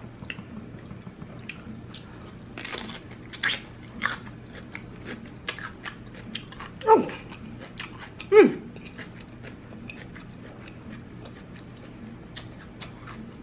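Close-up crunching and chewing of raw cucumber: many sharp, crisp bite clicks between wetter chewing. About halfway through come two short cries, each falling steeply in pitch, about a second and a half apart; they are the loudest sounds.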